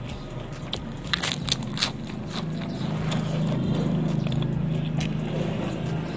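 Crisp crunches of a fresh lettuce leaf being bitten and chewed close to the microphone, a handful of sharp snaps in the first two seconds. After that a steady low drone swells and then eases off near the end.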